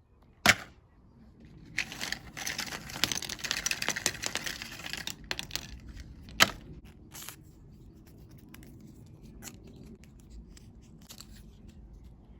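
Handling noises: a sharp knock, then about three seconds of crackling, rustling noise, then another sharp knock followed by faint scattered clicks.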